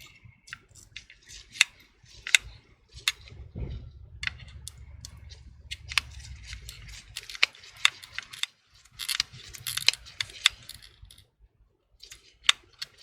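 Irregular sharp clicks and light scratching of small hand tools working on an opened iPhone 6s, prying at the battery's adhesive pull tape.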